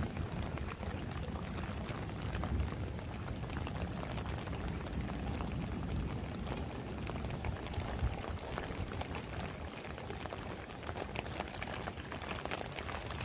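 Heavy rain falling steadily, with many separate drops hitting close by.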